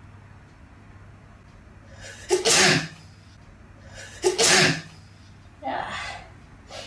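A woman sneezing: two loud sneezes about two seconds apart, each preceded by a short in-breath, then a softer third burst.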